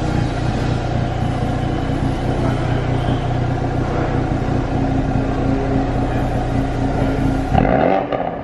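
Ford Focus RS Mk3's 2.3-litre turbocharged four-cylinder running steadily at idle through a Scorpion cat-back exhaust with its bypass valve open (track mode). Near the end the note changes sharply in a quick blip of the revs.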